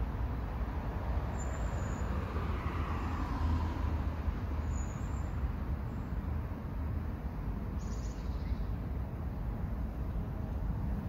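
Steady low rumble of road traffic, with one vehicle passing about two to four seconds in, its pitch falling as it goes. A few short bird chirps over the top.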